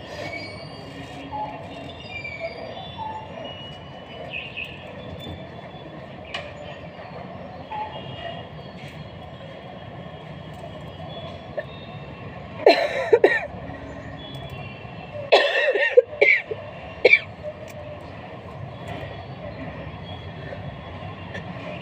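A woman coughing in two short fits, the first about halfway through and a longer one a few seconds later ending in a single cough, over steady background noise. The coughs come from a cold with a sore, painful throat and fever.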